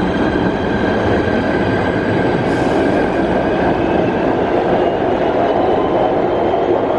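Kawasaki PA-5 PATH subway train departing an underground station: a steady rumble of wheels on rail with a held high whine that slowly fades as it pulls away, and a brief hiss about two and a half seconds in.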